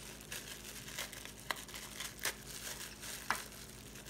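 Plastic cling wrap crinkling and crackling as it is peeled off a frozen block of baking-soda ice, with a few sharper crackles.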